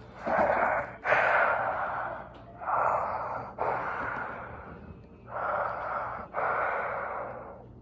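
A person breathing in and out through a homemade plastic gas mask that has no filter fitted: six loud breaths in three in-and-out pairs.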